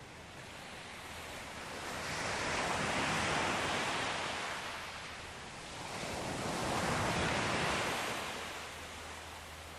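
Ocean waves washing onto a shore, swelling and ebbing twice in slow surges about four seconds apart.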